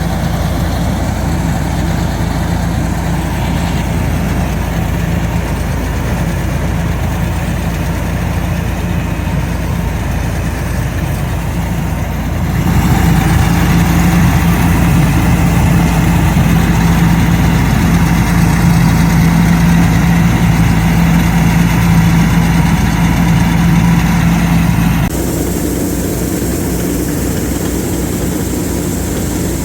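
Super Standard S50 mini combine harvester's engine running with a steady hum. It turns abruptly louder a little under halfway through, then drops back with a different note near the end.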